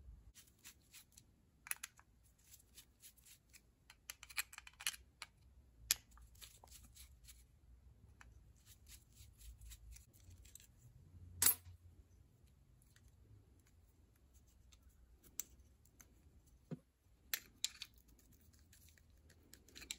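Faint, scattered clicks and scrapes of a screwdriver prying and turning small steel parts on a Ford flathead distributor's breaker (contact) plate, with one sharper metallic click a little past halfway.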